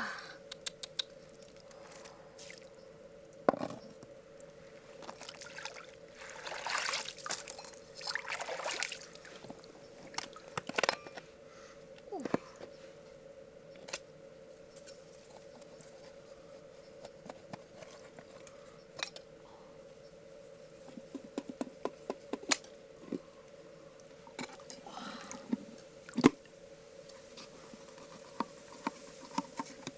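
Wet handling of a freshwater mussel as it is worked open for pearls: squishes and trickles of water, with scattered sharp clicks and taps. A faint steady hum runs underneath.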